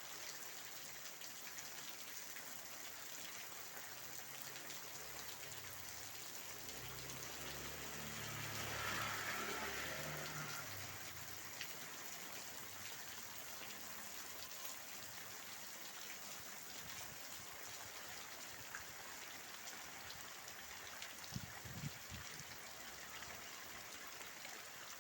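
Steady rain falling and pattering on surfaces. About a third of the way in, a low rumble swells and fades, and a couple of brief low knocks come near the end.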